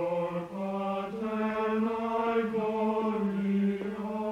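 Unaccompanied plainchant in a male register, with long held notes that move up and down by small steps.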